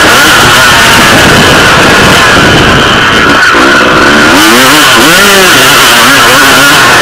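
Motocross dirt bike engine revving up and down as the rider works the throttle along the track. It drops off briefly midway, then climbs in several quick rising and falling revs, under heavy wind rush on the helmet-mounted camera's microphone, which is overloaded.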